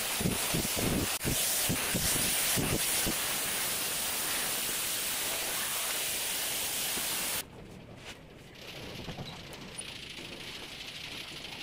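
A steady rushing hiss of air, with knocks and thumps in the first three seconds as the stand fan is handled and set down. The hiss cuts off suddenly about seven seconds in, and a quieter room background is left.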